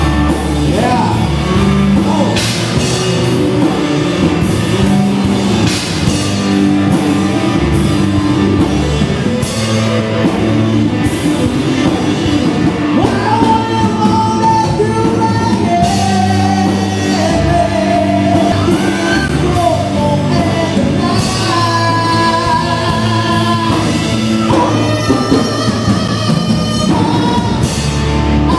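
A rock band playing live, with a sung lead vocal over drums and bass, recorded raw through a camera's microphone.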